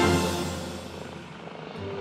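Background music: a sustained chord over a low hum fades out over the first second, leaving a quiet stretch.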